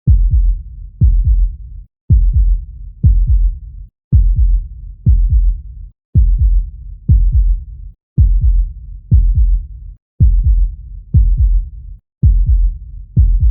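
Recorded human heartbeat: deep, low thumps about once a second, repeating as a loop with a brief silent gap every two seconds.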